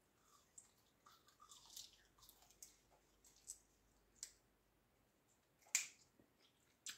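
A person chewing a snack with the mouth, faint crunching and wet clicks, with a couple of sharper clicks near the end.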